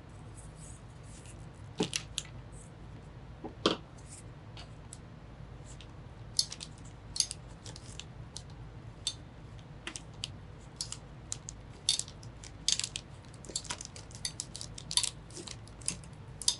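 Small hardware being handled during a PC build: irregular light clicks and ticks, with two sharper knocks about two and four seconds in.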